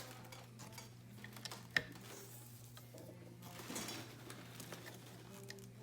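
Singer 211G151 heavy-duty needle-feed sewing machine turned slowly by hand, stitching through two layers of leather: scattered soft mechanical clicks and ticks, with one sharper click nearly two seconds in.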